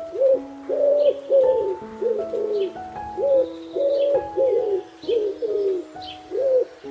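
A bird calling over and over in short, low, arching notes, about ten in all, over background music with long held tones.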